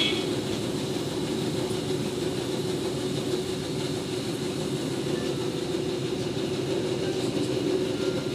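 Diesel passenger train running steadily along the line, heard from inside the carriage: an even, constant noise of the train and its wheels on the rails.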